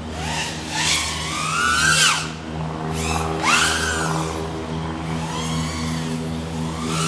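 Motors and propellers of a 3.5-inch TANQ S micro FPV quadcopter whining, the pitch sweeping up and dropping back in about five surges as the throttle is punched and eased, over a steady low hum.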